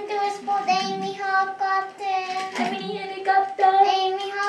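A child's voice singing wordlessly in long, level held notes, with short breaks between them.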